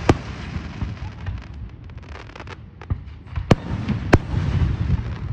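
Aerial fireworks shells bursting: a sharp bang just after the start, a run of lighter pops and crackles, then three more bangs in the second half, the last two the loudest, over a low rumble.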